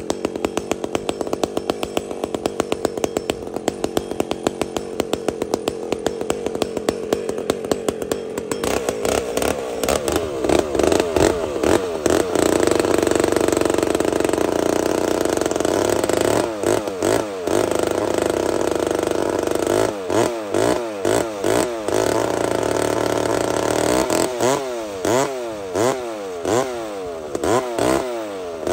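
McCulloch 125 Super Pro two-stroke chainsaw idling evenly. About eight seconds in it revs up to full throttle and cuts steadily into a big log, the engine note sagging and recovering a couple of times. Near the end the throttle is worked up and down in quick repeated revs.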